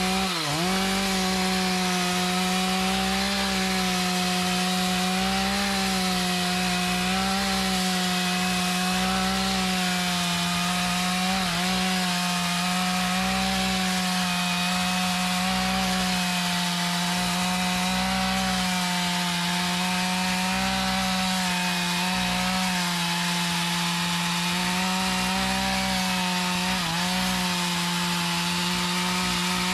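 Two-stroke chainsaw running at high speed as it cuts into a mahogany tree, its engine note held steady, with brief dips in pitch three times where the chain bogs under load.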